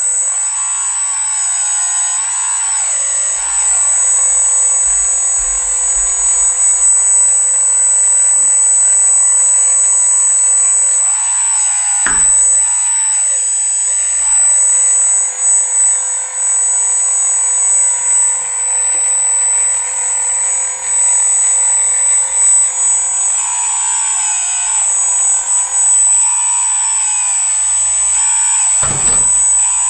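Whine of a radio-controlled skid-steer loader model's electric hydraulic pump and drive motors, with a steady high tone and a lower pitch that sags and recovers several times as the loader works. There are two short knocks, one near the middle and one near the end.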